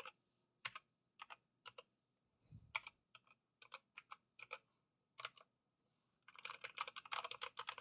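Redragon K617 Fizz mechanical keyboard being typed on: single keys pressed one at a time, each a short clack followed by its release click, with a duller thump about two and a half seconds in. About six seconds in it breaks into fast, continuous typing.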